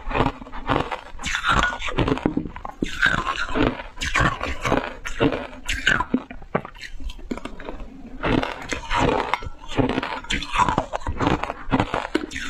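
Shaved ice being crunched and chewed in the mouth in big bites, a rapid, irregular run of crisp crunches.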